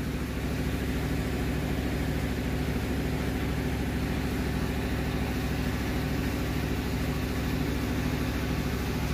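Steady low engine-like drone running at constant speed, with a faint regular pulse.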